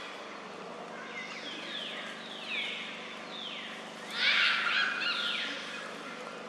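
High-pitched animal calls: a run of short falling cries, then a louder, harsher cry about four seconds in.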